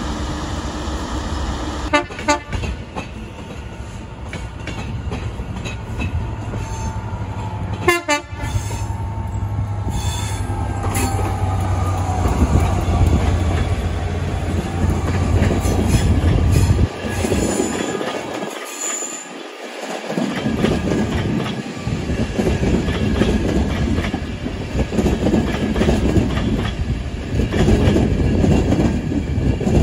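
A Class 43 HST power car's diesel engine runs with a steady low drone, broken by a couple of sharp knocks. After a break, a Transport for Wales train passes at speed with a loud, even rush of wheel and rail noise.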